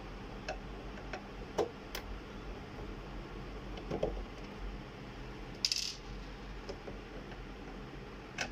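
A screwdriver working at the metal and plastic frame of an HP Scanjet Enterprise 7500 scanner: scattered small clicks and clinks, and one short scrape a little past halfway, over a faint low hum.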